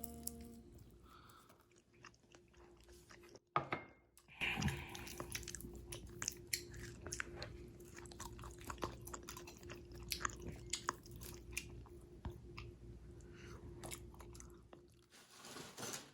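Someone chewing and crunching roasted sweet potato: a run of small crisp bites and chews over a faint steady hum.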